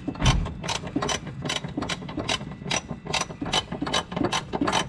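Hand ratchet wrench clicking steadily, about two to three clicks a second, with a low thump near the start.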